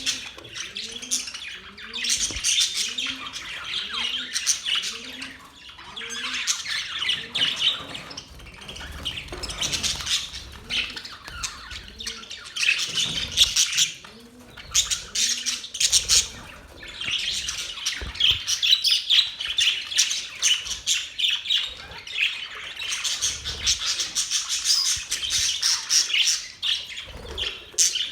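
Several budgerigars chattering and chirping continuously, in waves of warbling and squawking. A low rising note repeats about twice a second in the first half.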